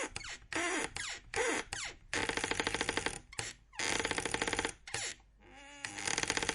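Door hinges creaking in a series of separate creaks: short squeaks sliding in pitch early on, then longer rasping creaks made of rapid ticks, each lasting about a second.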